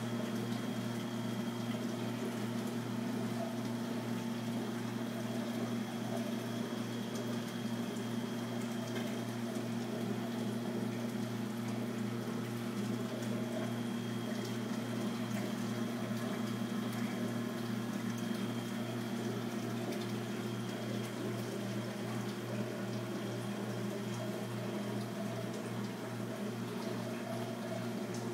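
Saltwater reef aquarium's equipment running: a steady electric pump hum under the continuous sound of circulating water.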